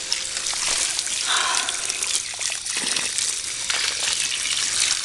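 Steady running water trickling and splashing over a Lego Technic car as it is rinsed.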